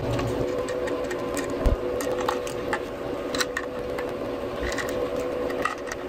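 Small clicks and taps of a 2.5-inch SSD being handled and a precision screwdriver working at a screw in its side, over a steady electrical hum. One dull knock comes a little under two seconds in.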